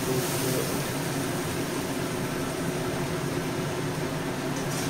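Steady low hum with a hiss, with a few faint clicks near the end.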